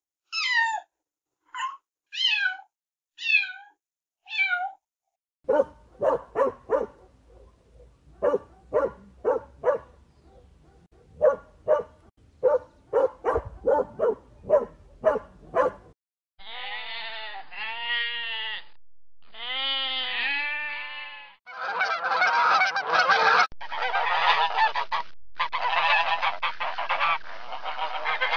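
A cat meows five times in short, falling cries. Then a dog barks repeatedly for about ten seconds. Two stretches of fast wavering animal calls follow, and near the end comes a loud, dense chorus of waterfowl honking.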